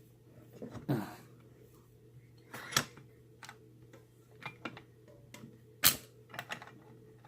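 Scattered small clicks and taps of a lock pick and tension wrench working inside a padlock, at irregular intervals, with a couple of sharper clicks.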